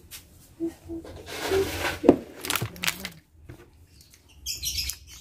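Quiet kitchen handling sounds under faint background voices. There are a couple of sharp clicks about two seconds in, and a short rustle near the end as apem cakes are handled in their paper-lined basket.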